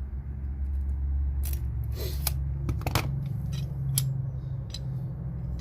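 Scattered sharp metallic clicks and clinks, strongest about two to four seconds in, as a Swedish-pattern pipe wrench is handled and its jaw worked. A steady low hum runs underneath.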